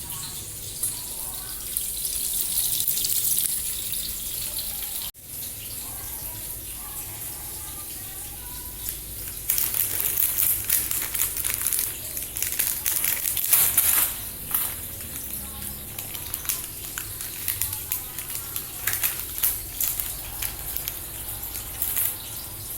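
Water running and splashing, with faint voices in the background; the sound drops out briefly about five seconds in, and from about ten seconds it turns louder and choppier, with irregular splashes.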